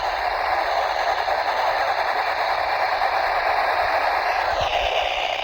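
Steady hiss of radio static from a weather radio receiver, an even noise with no tones in it.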